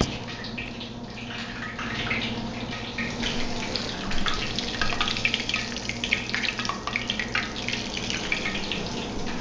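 Hot oil in a cast iron skillet on a gas burner, crackling and spitting with many small irregular pops, over a low steady hum.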